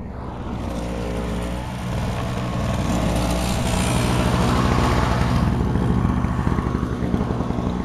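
A motor engine running steadily, with a rush of noise that swells over the middle few seconds.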